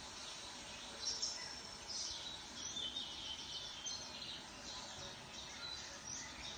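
Birds chirping in short, irregular high calls over a steady background hiss, starting about a second in.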